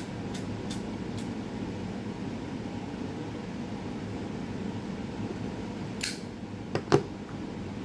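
Steady hum of a room fan, with a few faint clicks in the first second, a short hiss about six seconds in, and two sharp clicks near the end.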